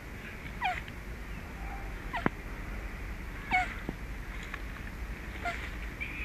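An animal calling four times, each call short and falling steeply in pitch, about every one and a half seconds, with two sharp clicks between them.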